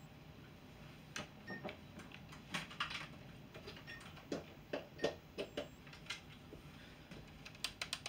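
Faint, irregular clicking and tapping, like keys being typed on a keyboard, a dozen or so strokes at an uneven pace.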